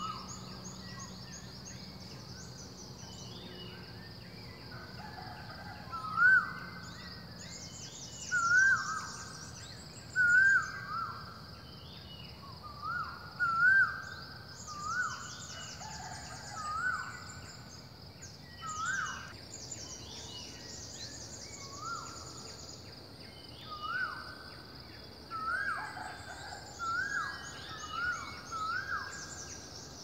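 Red junglefowl calling again and again, a short call with a quick upward hook every second or two. Small birds twitter in high trills above it, over a steady high insect drone.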